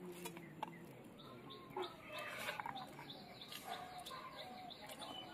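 Faint bird calls, a quick run of short repeated notes starting about two seconds in. Early on there are a few soft clicks of fingers mixing rice on a steel plate.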